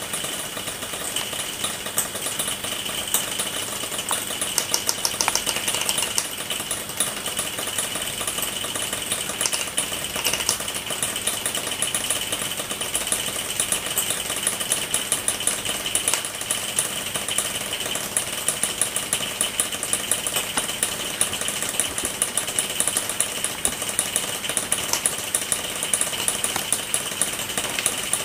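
HO-scale model trains running on an analogue layout: a steady mechanical whir with a faint whine and many quick clicks, as from wheels passing over rail joints.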